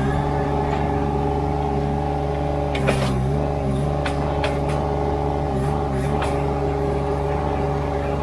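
Ditch Witch SK800 mini skid steer's engine running steadily, its pitch sagging briefly twice as it takes load. A few sharp knocks sound over it, the loudest about three seconds in.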